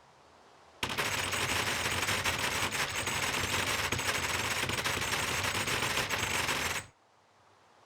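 A loud, dense crackling rattle of rapid clicks, like sustained automatic fire, starting about a second in, running about six seconds and cutting off suddenly.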